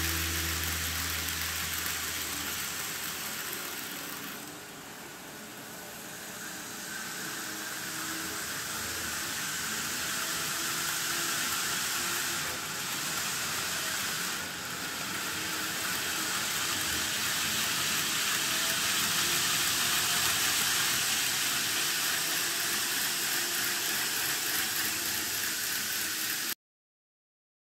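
Two N scale model trains running on the layout: a steady hiss of wheels on the track with faint whining tones, dropping away about four seconds in and building up again as the trains move. It cuts off abruptly near the end.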